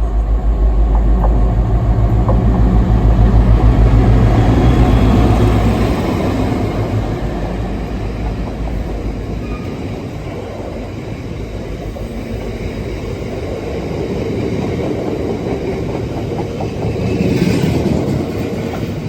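A diesel-hauled train passing close. The locomotive's engine throbs heavily for about the first six seconds, then gives way to a long rattling clatter of wheels over the rails, which swells briefly again near the end.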